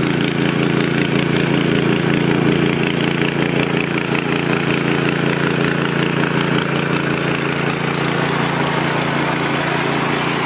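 Engine-driven machine running steadily with a constant low hum and a dense mechanical clatter.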